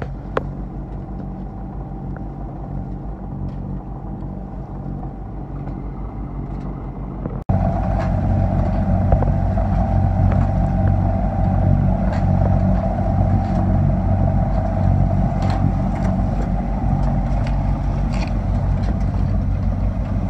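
Sailing yacht's auxiliary engine running steadily under way, a continuous drone, markedly louder after a cut about seven and a half seconds in.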